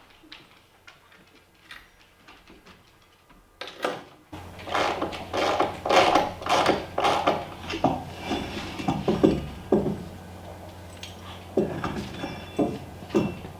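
Faint scattered ticks, then about four seconds in a steady low hum starts under a busy run of knocks and clatter of hard objects, thinning out towards the end.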